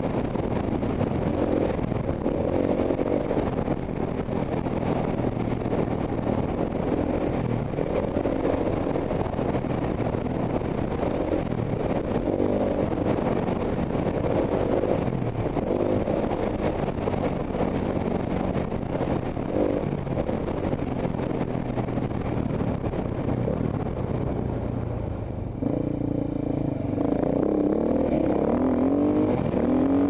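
Off-road dirt bike engine heard on board through a helmet camera, running hard with the revs rising and falling as the rider works the throttle and gears. About three-quarters of the way through the engine briefly drops off, then revs climb in rising sweeps as it accelerates.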